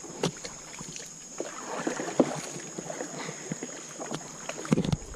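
Wooden canoe being paddled: the paddle dips and pulls through the water with light splashes and scattered short knocks.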